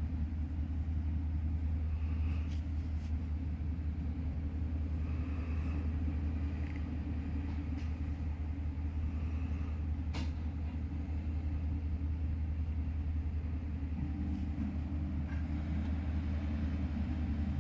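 Steady low engine rumble, with faint snoring breaths coming every three to four seconds over it.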